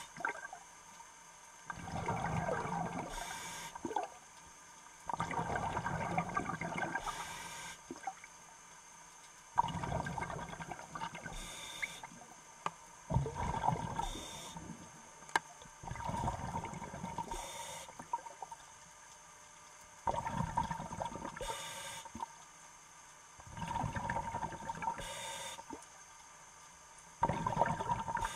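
Scuba diver breathing through a regulator underwater: a short hiss of inhaled air, then a longer gush of bubbling exhaust bubbles, repeating about every four seconds.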